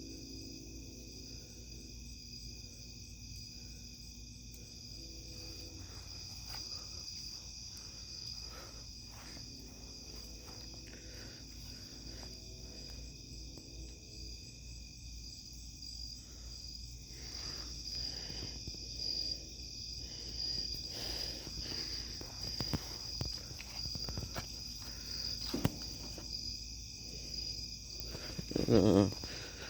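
Insects chirring in a steady, high-pitched chorus, over a low steady hum. Scattered clicks and rustles become more frequent in the second half, with a louder rustle just before the end.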